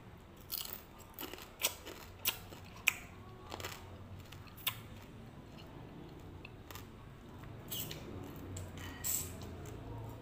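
Close-up eating sounds of green papaya salad (som tam): irregular crisp crunches and clicks from chewing and the fork in a plastic bowl. They come most often in the first half and are softer and sparser later.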